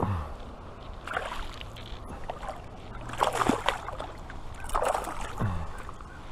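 Water splashing in three or four short bursts, typical of a caught fish being handled and landed at the water's edge.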